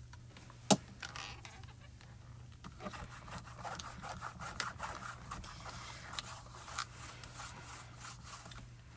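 Hands pressing and rubbing over the back of a rubber stamp in a stamping platform, a soft scratchy rubbing with small ticks, after a single sharp click under a second in.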